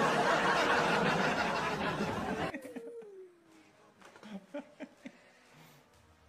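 Loud raucous laughing and shrieking for about two and a half seconds, trailing off in a falling wail, then only faint scattered sounds.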